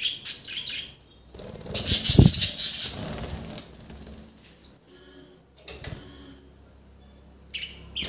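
Budgerigars flapping their wings, loudest in a burst about two seconds in, with a few short chirps.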